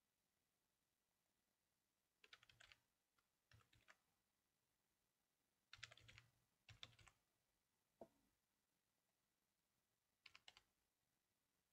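Faint computer keyboard typing in several short bursts of keystrokes, with pauses between them.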